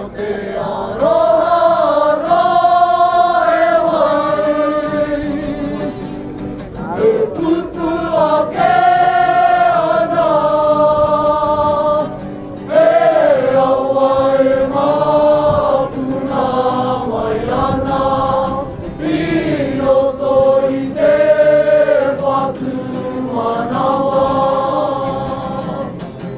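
A school kapa haka group singing together in harmony to acoustic guitar, in long held phrases with short breaks between them.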